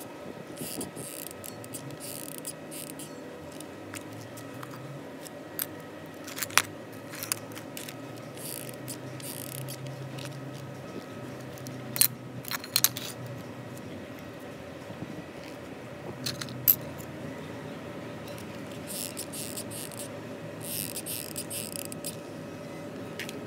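Light clicks and taps of cylindrical lithium-ion cells and a plastic cell holder being handled on a concrete surface, with a few sharper clicks and some short rustles near the end.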